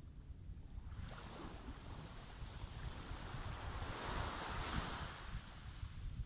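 A small sea wave breaking and washing up a sandy beach: the hiss builds about a second in, is loudest around four to five seconds, and fades near the end. Wind rumbles on the microphone throughout.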